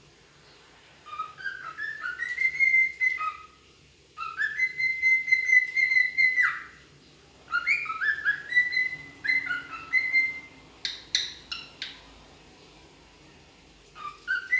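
Grey (wild-type) cockatiel whistling. It gives three phrases of short notes stepping upward to a long held whistle, then a few short sharp chirps, and starts one more rising whistle near the end.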